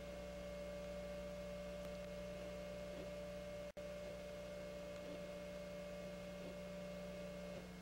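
A steady, single-pitched electronic tone over a low electrical mains hum. The sound drops out completely for an instant about halfway through, and the tone stops shortly before the end.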